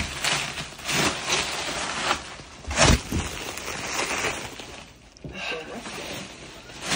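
Tape and plastic shrink wrap being ripped and crinkled by hand as a heavily wrapped present is pulled open, in uneven bursts, with a heavier thump about three seconds in.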